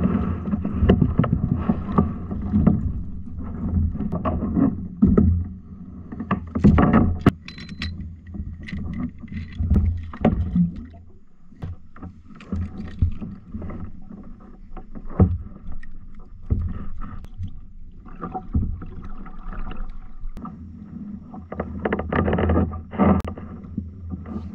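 Plastic sit-on-top fishing kayak (Ocean Kayak Prowler 13) on the water: a steady low rumble of water against the hull, with many sharp knocks and clatters from the paddle and gear against the hull. Partway through, an anchor line reel is handled as the kayak is anchored.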